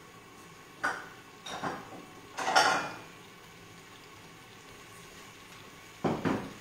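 Metal kitchen utensils clattering and rattling in short bursts, three in the first three seconds and one more near the end, as a wire-mesh skimmer for draining gnocchi is fetched.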